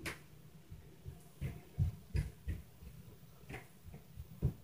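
Footfalls from the apartment upstairs coming through the ceiling as dull low thuds, about half a dozen at irregular spacing, with a sharper knock right at the start.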